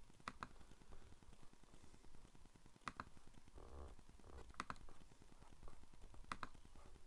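A handful of quiet, sharp clicks from a laptop's touchpad, some in quick pairs, a second or two apart.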